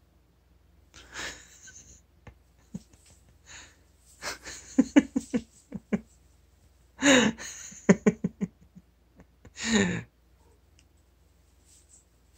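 A person laughing under their breath in short breathy bursts, with a couple of brief voiced gasps.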